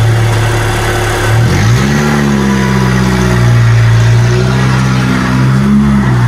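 Off-road 4x4's engine running under load. Its pitch rises about a second and a half in, then holds steady.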